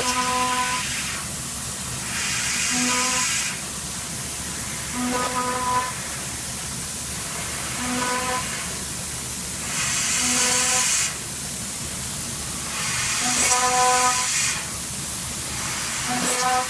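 CNC milling machine running with a continuous hiss, swelling into louder high hissing surges several times, while a short pitched tone comes back about every two and a half seconds.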